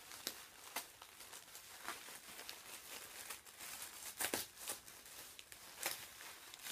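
Tissue paper crinkling and rustling as hands work a ribbon off a wrapped gift, with many sharp crackles, the loudest a little past the middle.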